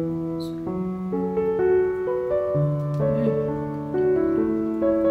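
Background piano music: a slow melody of single notes over held bass notes.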